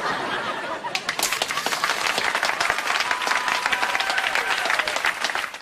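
Studio audience applauding and cheering, cutting off sharply at the end.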